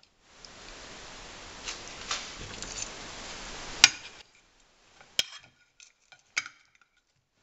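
Metal kitchen tongs clicking against a ceramic plate while picking up pieces of browned chicken: scattered light clicks, with a sharp clack a little before four seconds in and another about five seconds in. A steady hiss drops away about four seconds in.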